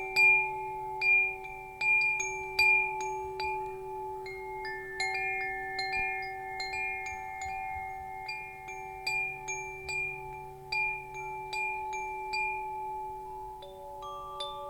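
Wind chimes ringing: irregular strikes, several a second, each note ringing on and overlapping the others into a sustained chord. The strikes are loudest near the start and grow softer.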